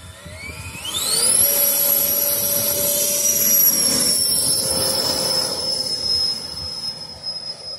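Radio-controlled model jet's engines spooling up to full power with a fast rising whine, then a loud, steady high-pitched whine through the takeoff run and climb-out. The whine drops slightly in pitch and gets quieter after about six seconds as the model flies away.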